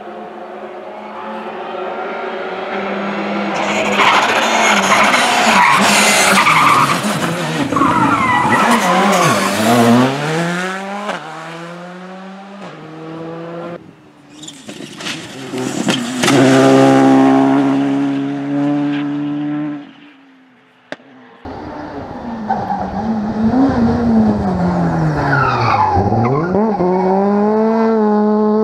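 Rally cars driven hard on a special stage, one pass after another: engines revving high and shifting up through the gears, the pitch dropping as each car goes by, with tyres skidding on the surface.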